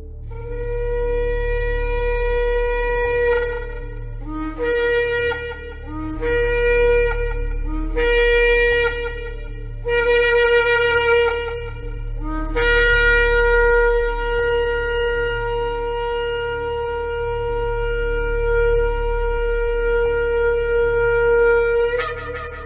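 Shofar (ram's-horn trumpet) blowing: one long blast, then four shorter blasts that each start on a lower note and jump up, then a very long held blast that cracks upward just before it ends. A steady low hum runs underneath.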